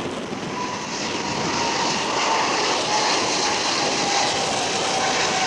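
Twin GE90 turbofans of a Boeing 777-300ER at takeoff thrust as it climbs away: a steady jet roar with a whine that slowly falls in pitch.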